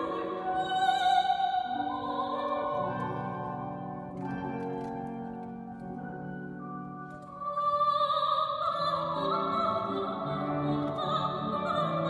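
Soprano singing a classical romance in operatic style with grand piano accompaniment. The music eases to a softer passage midway, then her voice returns loud on high, sustained notes about three-quarters of the way through.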